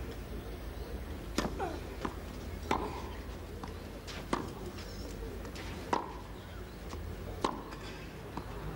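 Tennis balls struck with rackets in a baseline rally on a clay court: five sharp hits about a second and a half apart, over a steady low hum.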